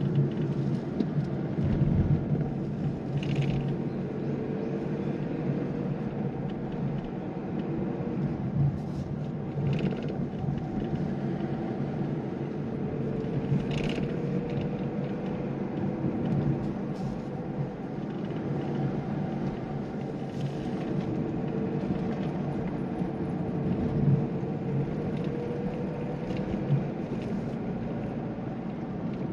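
Mazda Demio (Mazda2) diesel on the move, heard from inside the cabin: steady engine and tyre road noise with an engine note that slowly rises and falls, and a few light clicks and knocks.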